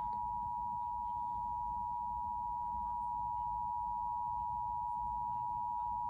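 Emergency Alert System attention signal on TV: a steady two-tone beep held without a break, sounded for a Required Monthly Test.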